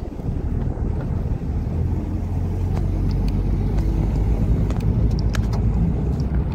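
Road noise heard from inside a moving car: a steady low rumble of engine and tyres, with a few light clicks in the middle.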